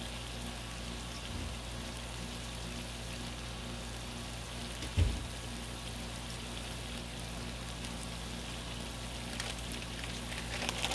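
Chili of ground meat and chopped peppers sizzling steadily on a Blackstone griddle's hot flat-top, with one brief low thump about five seconds in.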